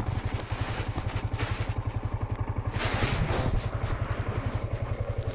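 Motorcycle engine idling with a rapid, even low pulse while it warms up. Two brief scraping noises come about one second and three seconds in.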